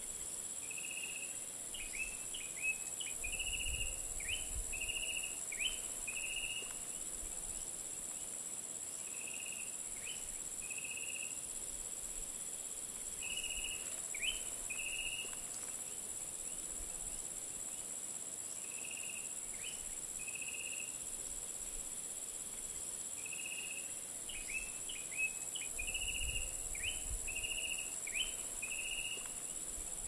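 Dawn insect chorus of crickets and cicadas, a steady high-pitched drone, with a bird calling in bouts of short high notes, some sliding down, several times over. Light wind brushes the microphone with a low rumble twice, about four seconds in and near the end.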